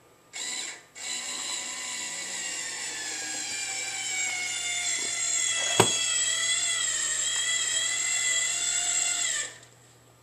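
Battery-powered drill running at speed with a high whine: a short burst, a brief stop, then one long run of about eight seconds whose pitch rises slightly before it winds down and stops. A single sharp click comes about six seconds in. The drill is most likely driving a screw or boring its hole to mount a door closer.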